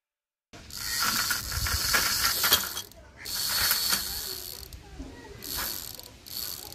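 Small DC motor of a homemade electric bicycle driving the front wheel through a chain and sprocket, with a rattling chain and a high motor whine. It runs in about four short goes that start and stop, the first and longest lasting about two seconds.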